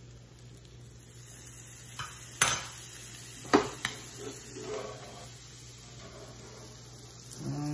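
A metal spoon and spatula clinking against a stainless steel skillet: four sharp clinks, the two loudest about two and a half and three and a half seconds in, over a low sizzle of butter melting around frying crab cakes.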